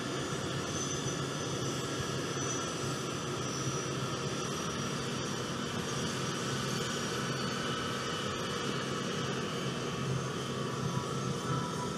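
Boeing C-17 Globemaster III's four turbofan engines running at low taxi power as the aircraft taxis and turns: a steady rush with faint high whining tones over it.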